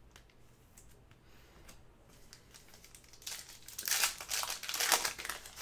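Plastic foil wrapper of a Panini basketball card pack being torn open and crinkled. It starts about three seconds in, after a few faint clicks.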